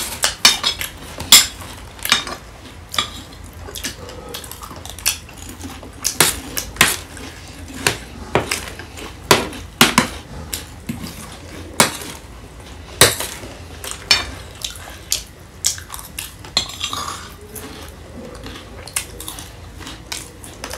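Spoons clinking and scraping against plates and bowls while eating: irregular sharp clicks throughout, with a few louder knocks.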